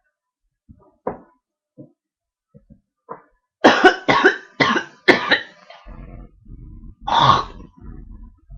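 A man coughing: a few small throat noises, then a fit of four hard coughs in quick succession and one more about a second and a half later.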